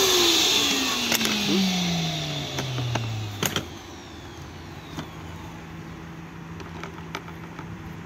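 Krisbow FRVCW12 wet-and-dry vacuum cleaner's motor winding down after switch-off, its whine falling steadily in pitch and fading over about three and a half seconds. Plastic clicks and knocks follow, the sharpest about three and a half seconds in, as the motor head is unlatched and lifted off the tank.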